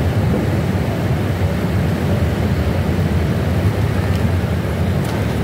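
Steady, loud low rumble of outdoor background noise, with a couple of faint ticks near the end.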